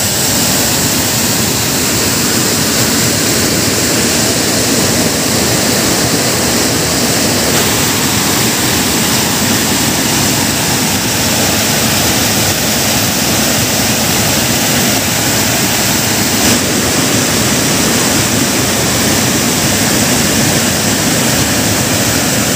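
Water pouring over a low stone overflow weir of a lake, a steady loud rushing.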